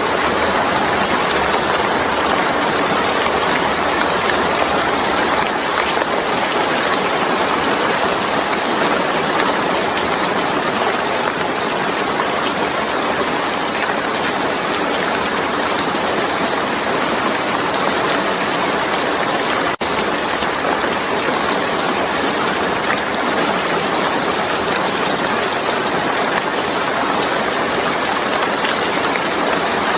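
Steady, heavy rain: a dense, even hiss of falling water, with a momentary dropout about two-thirds through.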